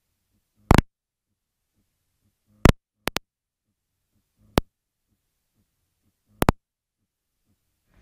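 A GoPro external microphone, blown by the car stereo's bass, cutting out to near silence and giving sharp crackling pops about six times, two of them in quick succession. Only faint low pulses come through between the pops.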